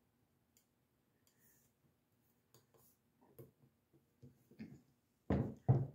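Light metal clicks and taps of a tiny set screw being started by hand into a steel gas block on a rifle barrel, with two louder knocks near the end.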